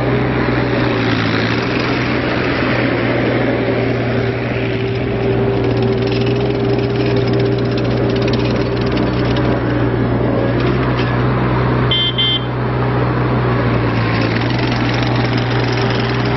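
Perkins diesel engine of a Terex PT30 compact track loader running steadily. A brief high beep sounds about twelve seconds in.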